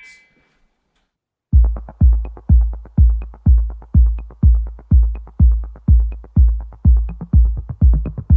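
Background electronic dance music with a steady, heavy kick drum beating about twice a second, starting about a second and a half in after near silence.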